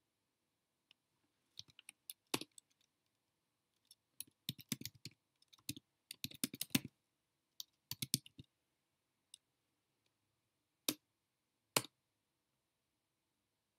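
Typing on a computer keyboard: quick bursts of key clicks, then two separate single keystrokes near the end.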